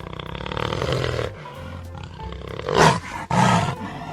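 Jaguar growling and roaring in rough, rasping bursts, loudest a little under three seconds in.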